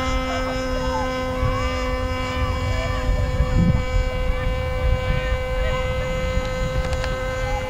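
Steady electrical hum in the recording, a constant buzzing tone with overtones, over a low rumble of wind on the microphone.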